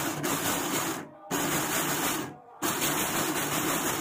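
A bank of six 775 DC motors geared to one common shaft, running with a steady whir. The sound comes in runs of about a second, cutting out briefly twice before running on.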